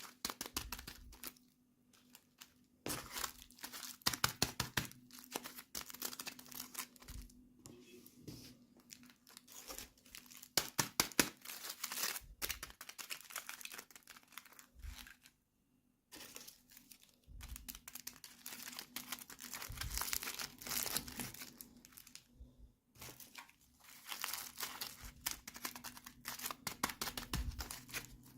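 Toy packaging being unwrapped: plastic wrapping crinkling and tearing in crackly spells of a few seconds with short pauses between them.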